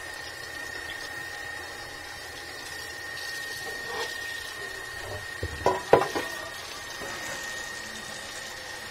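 Kitchenware clattering at a counter: a few sharp clinks and knocks about six seconds in, over a steady hiss of room noise with a faint high whine.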